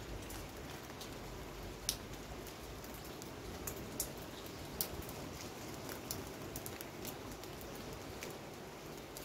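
Rain falling steadily: an even hiss with sharp drops tapping close by, roughly one every second, the loudest about two seconds in and around the four- to five-second mark.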